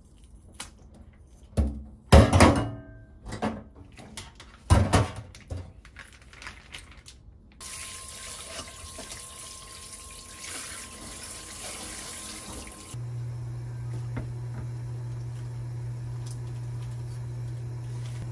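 Plastic bag of shucked oysters handled and emptied into a mesh sieve over a stainless-steel sink: crinkling and a few loud knocks and clatters in the first five seconds. Then a tap runs onto the oysters in the sieve for about five seconds as they are rinsed. After the water stops, a steady low hum remains.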